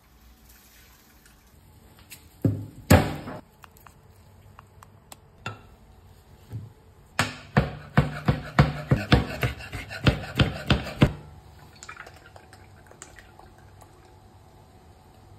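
A chef's knife chopping on a cutting board, a run of quick, even knocks at about three a second lasting around four seconds. A couple of louder knocks come a few seconds before it.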